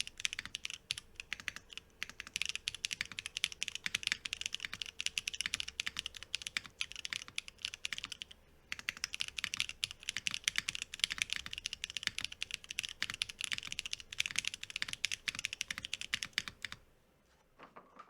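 Mechanical keyboard with Glorious Panda tactile switches, GMK Striker ABS keycaps and an FR4 plate, typed on fast and continuously in a dense clatter of key presses. The typing pauses briefly about eight and a half seconds in and stops about a second before the end.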